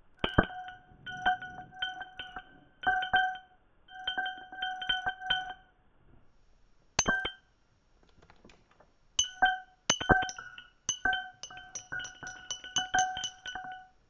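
Clicks and taps fed through a granular pitch-shift and delay effect, each coming out as a short, glassy ringing tone on one fixed pitch with its overtones. The clicks come in quick clusters, with a gap of about two seconds a little past the middle.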